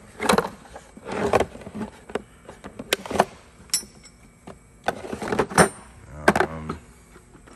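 Metal hand tools in a toolbox drawer being handled, with irregular sharp clacks and clinks, a couple of them ringing briefly.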